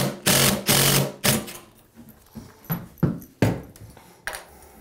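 DeWALT cordless impact driver running a 3-inch screw through a stainless grab bar flange into a tiled wall. It runs in two short bursts and stops about a second in. A few light clicks and knocks of metal parts being handled follow.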